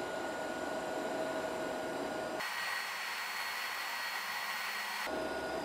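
Lift-TIG welding arc at about 80 A burning steadily: a quiet, even hiss. Its tone changes abruptly about two and a half seconds in and changes back near the end.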